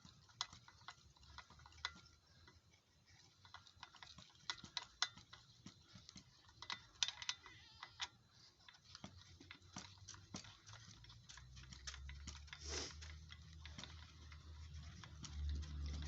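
Irregular light clicking of a socket ratchet turning a freshly loosened rusted nut off its bolt. A low rumble builds in the last few seconds.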